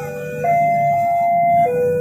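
A two-tone siren-like signal alternating between a higher and a lower note, switching about once a second, over a low rumble.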